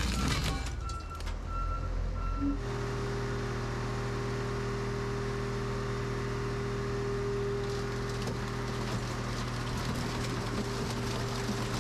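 A heavy machine's backup alarm beeping about twice a second, then, after an abrupt change about two and a half seconds in, a heavy engine running steadily at an even pitch.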